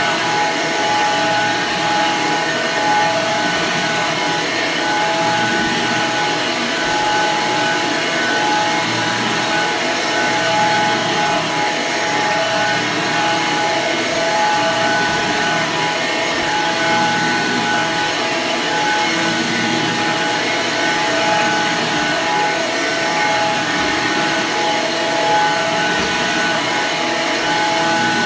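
Red Hoover vacuum cleaner's electric motor running steadily: an even rush of air with a constant whine.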